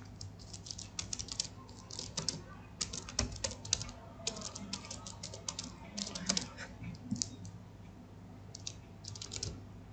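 Typing on a computer keyboard: quick runs of keystrokes broken by short pauses, with a longer pause before a last run near the end, over a faint low hum.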